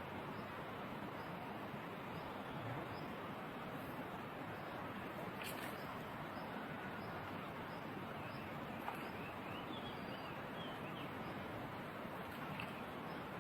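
Steady rush of stream water, with small birds chirping and calling over it and a single sharp click about five and a half seconds in.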